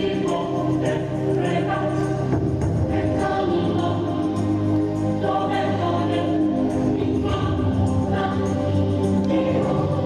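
Choral music: a choir singing sustained chords that change every second or two.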